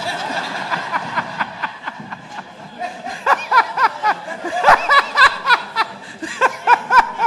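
A congregation laughing. From about three seconds in, one person's loud, rapid ha-ha-ha laughter stands out, and it comes again near the end.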